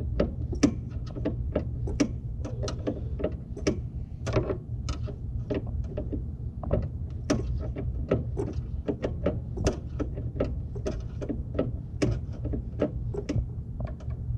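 Rapid, uneven clicking, a few clicks a second, as a hand tool turns a headlight aim adjuster, over a steady low hum.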